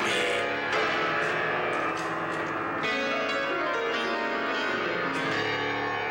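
Piano being played, with many notes and chords struck in quick succession and ringing on.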